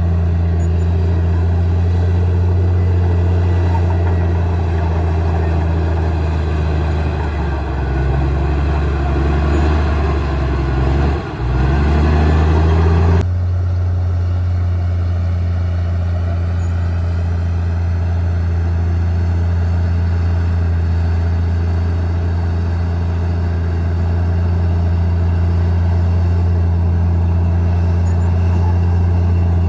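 Komatsu D58E bulldozer's diesel engine running steadily. Its pitch sags and then picks back up for a few seconds near the middle as it takes load, and the sound changes abruptly shortly after.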